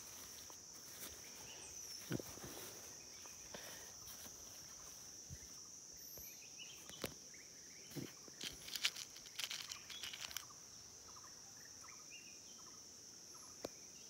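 Steady high-pitched insect drone, with handling noise over it: a tin of airgun pellets opened, tissue paper rustling, and lead pellets clicking as fingers stir them, most busily about eight to ten seconds in.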